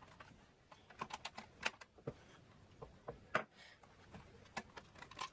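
Irregular small plastic and metal clicks and taps from hands working at the internal panels of a Toshiba Portégé R700 laptop's opened underside. Two sharper clicks stand out, one in the middle and one near the end.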